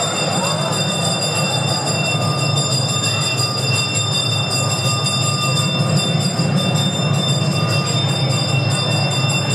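A dense, unbroken din of temple bells ringing continuously over rapid drumming. This is the accompaniment of the arati, the lamp-waving offering to the deity.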